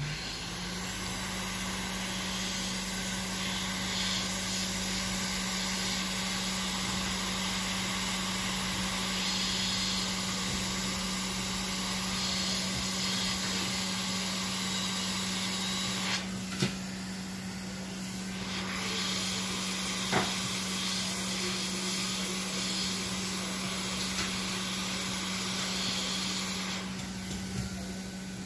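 Hot air rework gun blowing steadily, a hiss over a low steady hum, as it heats a shorted MOSFET to desolder it from a circuit board. A few faint ticks midway.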